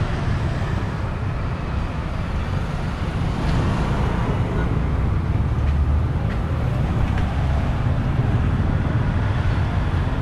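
Steady street traffic noise, a low rumble of motor scooters and cars passing.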